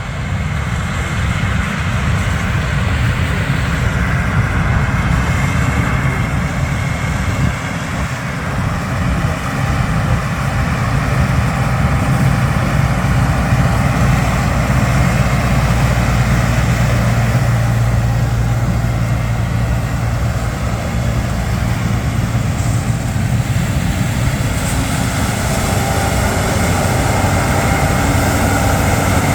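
Combine harvester running at work in corn: a steady, heavy diesel engine drone with a strong low hum and the broad rushing noise of the harvesting machinery.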